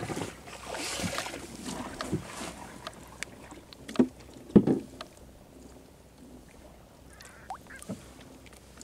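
Water sloshing against a small boat, then two loud splashes about four seconds in as a hooked grouper thrashes at the surface on a handline.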